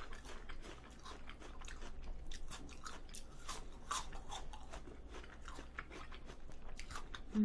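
A person biting into and chewing a crisp apple slice: a string of sharp, wet crunches, several a second.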